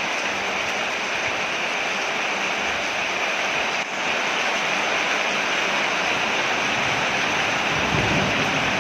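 Steady heavy rain falling on a porch, a dense even hiss; the sound dips briefly just under four seconds in.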